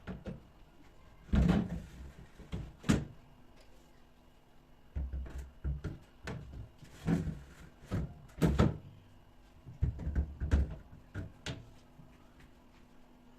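Kitchen handling noises: about ten irregular knocks and clunks as doors and household items are opened, moved and set down, over a faint steady hum.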